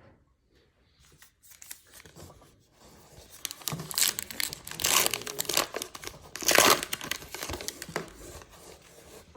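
Trading card pack wrapper being torn open and crumpled by hand: crinkling that starts about a second in and is loudest in two spells in the middle.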